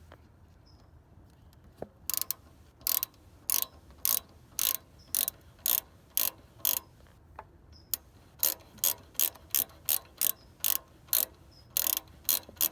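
Hand ratchet clicking in short back-and-forth strokes, about two clicks a second with a brief pause partway, as the diverter valve's mounting bolts are backed out.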